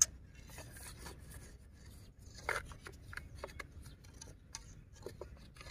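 A thin stick scraping and rustling as it is worked into a burrow hole in dry soil, with scattered small scratches and clicks, one a little louder about two and a half seconds in.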